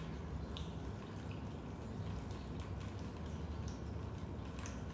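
Rain dripping into a basement: irregular drops tick and plink, a few with a short high ring, over a steady low rumble.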